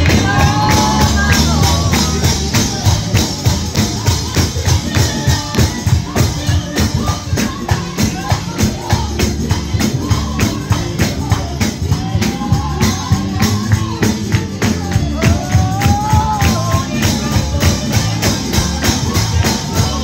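Live gospel music: a tambourine keeps a fast, steady beat over the band, and a voice sings long, gliding notes in places.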